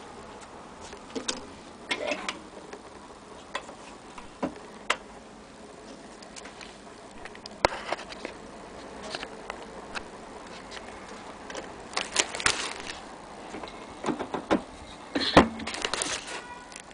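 Irregular clicks and light metallic knocks from handling the chrome fittings of an HMV Model 102 portable gramophone, with no record playing. The knocks come thicker and louder in the second half.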